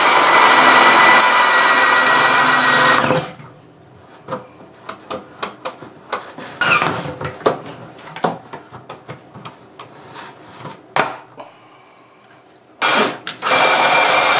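Cordless drill driving a 2-inch hole saw through a plastic bucket lid, a loud steady whine that stops about three seconds in. A run of light clicks and knocks follows between cuts. The drill starts up again near the end.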